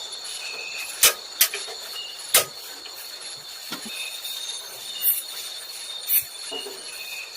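Steady, high-pitched chorus of night insects with short repeated chirps, broken by a few sharp clicks or knocks.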